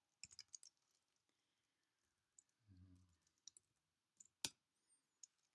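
Faint computer keyboard typing: a quick run of key clicks near the start, then scattered single clicks, the loudest about four and a half seconds in. A short low hum comes in about three seconds in.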